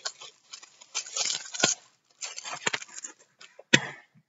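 Rustling and crinkling of packaging as things are pulled out of a small product box, broken by a few sharp clicks or taps, the loudest one near the end.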